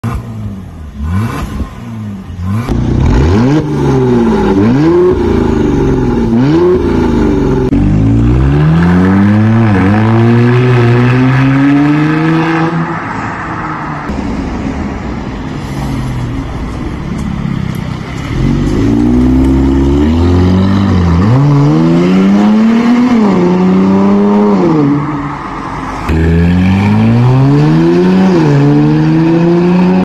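Mercedes-Benz S400 (W222) 3.0-litre twin-turbo V6 through a stainless mid pipe and valved muffler, its exhaust valve closed at first. The revs rise and fall in repeated quick sweeps, then climb steadily for several seconds as the car pulls away, and rise and drop again and again near the end.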